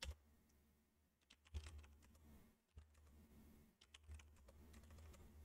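Faint computer keyboard typing: scattered keystrokes at an uneven pace.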